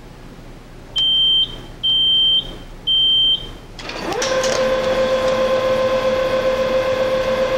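Three short electronic beeps about a second apart from a Dataproducts 1230 printer, then from about four seconds in the printer starts up and runs with a steady humming whine.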